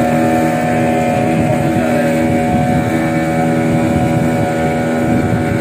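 Motorboat engine running at a steady cruising speed, a constant drone over the rush and slap of choppy water against the hull.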